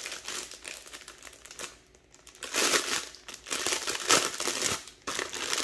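Clear plastic bag crinkling as it is handled and pulled open by hand, in irregular bursts with a short lull about two seconds in.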